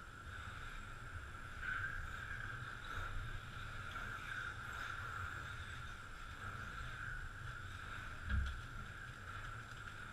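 Radio-controlled touring cars lapping the track, their motors making a steady high whine that swells a little as a car passes nearer. A short low thump about eight seconds in.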